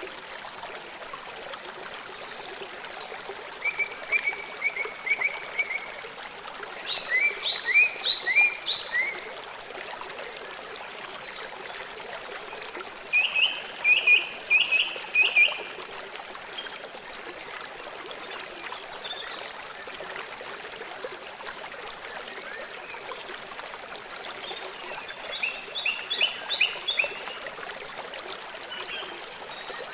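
Running water of a stream flowing steadily, with a songbird calling in short bursts of quick, repeated chirps about four times.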